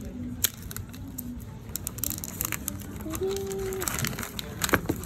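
A phone box and its packaging handled while being opened: scattered clicks and crackles. A short steady tone sounds about three seconds in.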